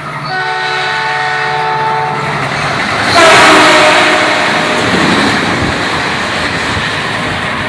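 Train horn sounding a steady multi-note chord, then a louder, noisier horn blast about three seconds in that slowly fades.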